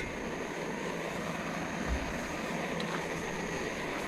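Gas camp stove burner running with a steady hiss, heating a pan of oil for frying. A single short low thump about two seconds in.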